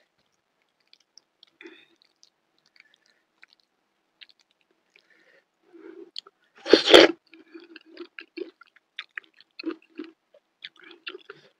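A person eating by hand: a few faint clicks at first, then a loud bite into a piece of fried tofu with chili sambal about seven seconds in, followed by steady chewing at about three or four chews a second.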